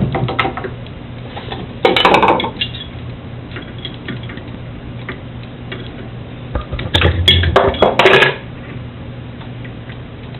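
Metal clinking and rattling of wrenches on a router's collet while a router bit is being loosened and changed, the bit sticking in the collet. The clinks come in two busy clusters, about two seconds in and again around seven to eight seconds in.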